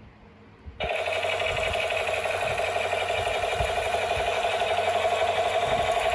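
Toy gun firing: a continuous, rapid buzzing rattle that starts about a second in and keeps going steadily.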